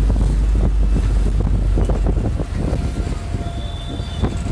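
Wind buffeting the phone's microphone as a heavy low rumble, over street traffic noise; it eases slightly about halfway through.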